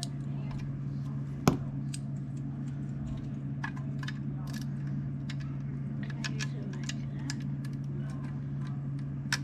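Lego bricks clicking and snapping together as pieces are handled and fitted, with a sharp snap about one and a half seconds in and another near the end. A steady low hum runs underneath.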